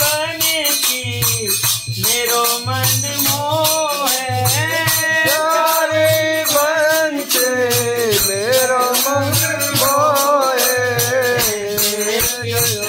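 A Hindu devotional aarti song: a voice singing a sliding, ornamented melody. It is backed by rapid rattling hand percussion and a low beat that pulses about once a second.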